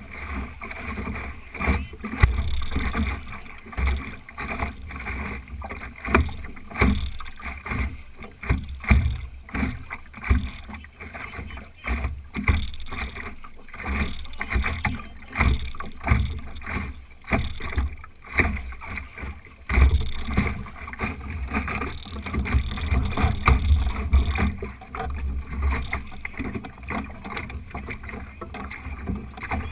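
Optimist sailing dinghy under way: water splashing and slapping against the hull in quick, irregular knocks over a steady low rumble.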